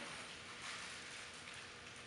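Roll-In TF1420 vertical band saw running without load after a cut, a faint steady hiss with a small click at the start.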